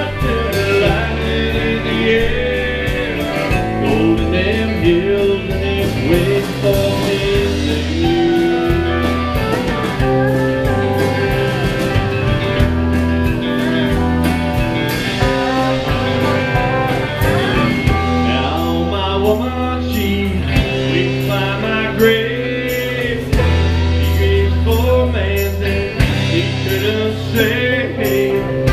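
A live country band playing, with electric guitars, drums and a steel guitar.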